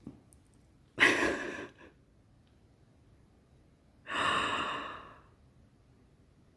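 A woman's breathy exhalations of delight: a short sharp one about a second in, then a longer sigh about four seconds in that fades out.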